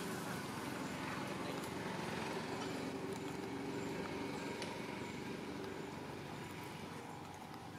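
Steady low hum of a distant motor vehicle engine, slowly fading toward the end, with a few faint clicks.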